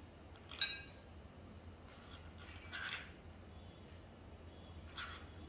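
Soft handling sounds of chopped red onion being moved from a plastic chopping board into a small dish: a short clink about half a second in, a soft scrape around three seconds in, and a faint knock near the end, over a low steady hum.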